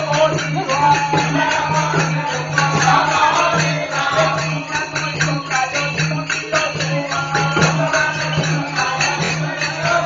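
Live folk music accompanying a dance-drama, with a fast, steady percussion beat and a steady low hum underneath, heard loud and coarse through an old keypad phone's microphone.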